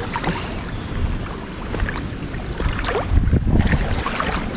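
Hooked rainbow trout splashing and thrashing at the surface in shallow water, with wind rumbling on the microphone, strongest about three seconds in.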